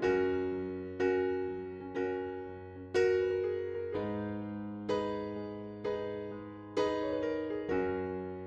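Background music: soft electric piano chords struck about once a second, each fading before the next.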